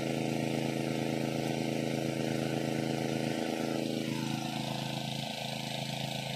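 A small engine running steadily, its pitch dropping a little about four seconds in.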